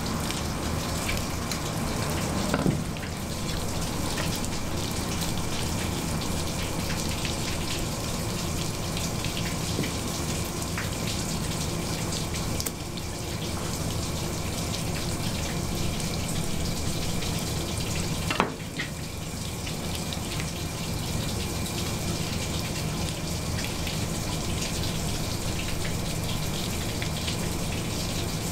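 Water running steadily from a tap over a low steady hum, with two sharp knocks, one a few seconds in and one past the middle.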